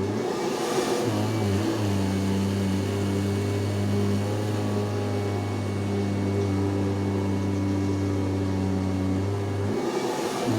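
Kirby vacuum cleaner running steadily with a constant motor hum. The hum breaks briefly with a rush of air hiss about a second in and again near the end.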